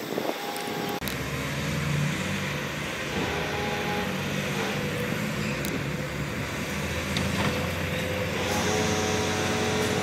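Heavy diesel engine of an earthmoving machine running steadily, its low note setting in abruptly about a second in, with a few faint clicks.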